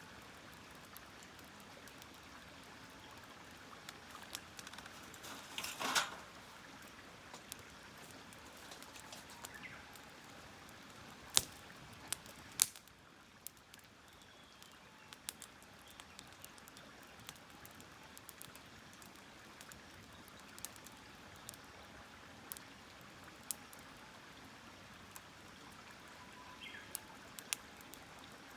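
Wood fire crackling, with a steady hiss and scattered sharp pops, a louder burst of crackle about six seconds in and two sharp snaps around twelve seconds.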